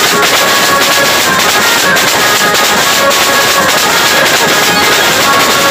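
Live banjo party band playing loud, fast percussion: steel-shelled drums struck with sticks and a barrel drum, with held melody notes above.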